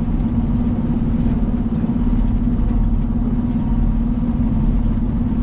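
Semi truck's diesel engine running steadily, a constant low drone.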